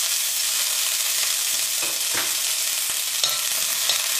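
Washed dried red chillies sizzling and spluttering in hot oil in a cast-iron kadai; the water left on them from washing makes them hiss steadily. A ladle stirs them, with a few sharp clicks in the second half.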